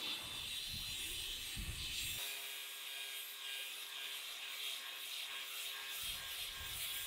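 An angle grinder's abrasive disc grinds the edge of a steel knife blade, sharpening it. It makes a steady rasping hiss over the even hum of the motor.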